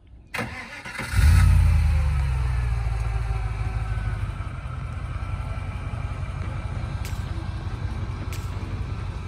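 Off-road 4x4's engine and drivetrain rumbling as it pulls away and drives on slowly; the low rumble swells about a second in, then settles steady.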